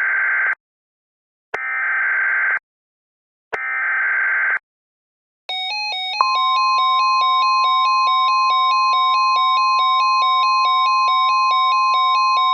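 Emergency Alert System SAME header: three short, screechy digital data bursts about two seconds apart. They are followed by an electronic alert tone warbling rapidly between two pitches, joined about six seconds in by a steady high NWS weather-radio alert tone, signalling an incoming tornado warning.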